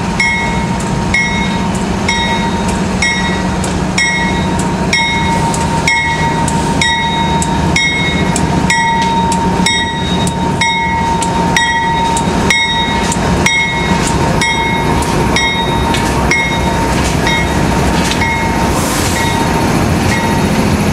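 Freight train of hopper cars with a Union Pacific diesel locomotive, the locomotive's engine running with a steady low hum. A short ringing clank repeats about once a second and fades out near the end.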